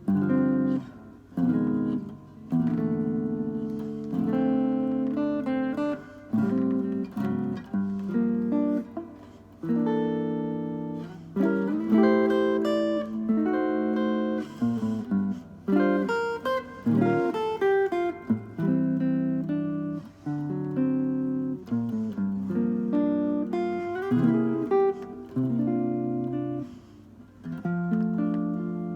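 Solo acoustic guitar playing a slow arrangement of plucked and strummed chords, with short breaks between phrases.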